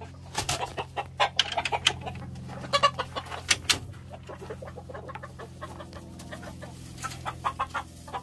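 Gamecocks clucking in their pens, with a run of short calls near the end. Sharp knocks and rattles in the first few seconds as the wooden slatted pen door is handled.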